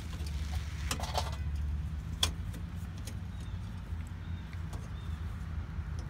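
Hands working fuel-line fittings and hoses under a diesel pickup: a cluster of rattles and clicks about a second in, then one sharp click a little after two seconds, over a steady low hum.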